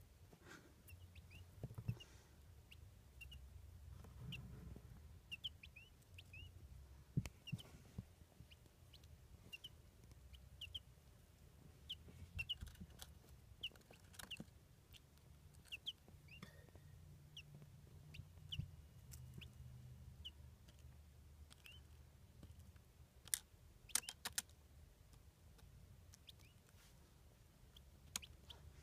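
Newly hatched quail chicks peeping faintly, short high chirps coming in scattered runs. A few sharp clicks, the loudest sounds, cluster past the middle over a low rumble.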